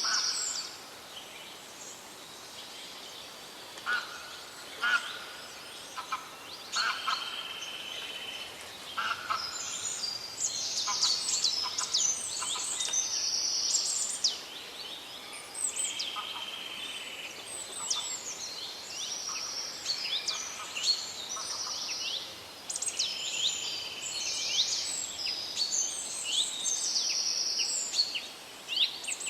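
Several songbirds singing together in a forest, an overlapping mix of short buzzy trills, chirps and quick falling notes over a faint steady background hiss.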